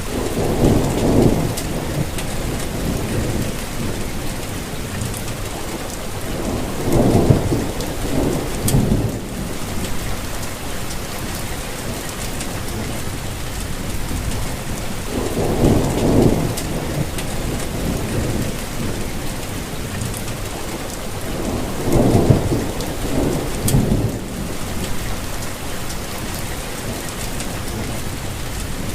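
Steady rainfall hissing, with thunder rumbling low four times, at intervals of about seven seconds.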